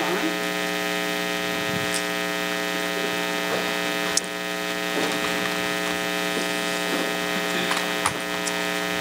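Steady electrical mains hum in the microphone and sound system, a buzzy hum made of many even overtones, with a few faint clicks about two, four and eight seconds in.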